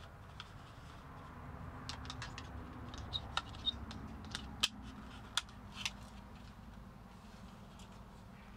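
Sharp plastic clicks and taps as a small round plastic alarm unit is turned and handled in the hands, a cluster of a dozen or so clicks between about two and six seconds in, over a low steady hum.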